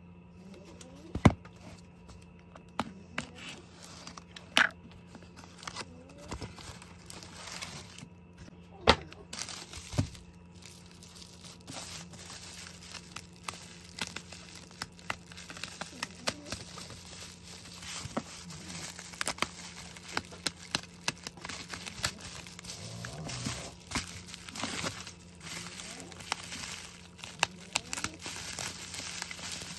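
Plastic bubble wrap crinkling and rustling as hands handle it and peel its tape open, with many sharp clicks and crackles throughout, a few of them much louder.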